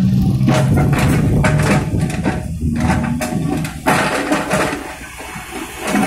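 SANY excavator's diesel engine running under load as its bucket digs and scrapes soil and stones, with repeated clatters of rock and grit.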